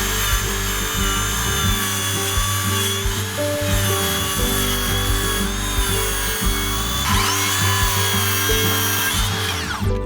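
Electric power tool motor running at high speed on woodwork, with its pitch dipping under load. It eases off and spins up again about seven seconds in, then winds down near the end. Background music plays underneath.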